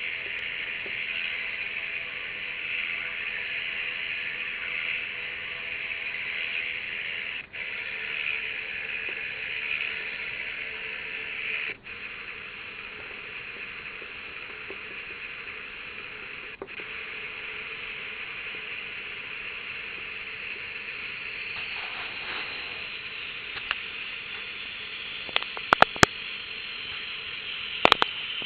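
Simulated motor sound for an RC model, played back by a DFPlayer Mini MP3 module under Arduino control: a steady hissy engine hum that cuts out briefly three times and is a little quieter after the second gap. A few sharp clicks near the end.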